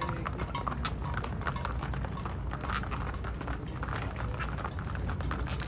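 Hooves of a herd of Texas longhorn cattle and their riders' horses clopping on a paved street as the herd is driven along: many sharp, irregular clacks over a steady low rumble.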